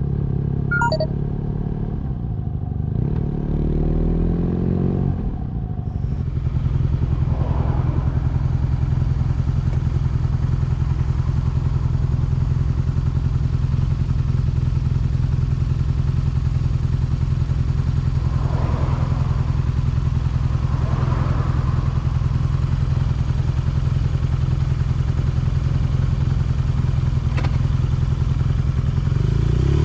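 BMW R nineT's air/oil-cooled boxer twin slowing, its note shifting over the first few seconds, then idling steadily at a standstill.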